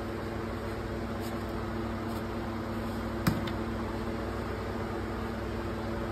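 Steady machine hum with a low, even drone, and one short knock about three seconds in.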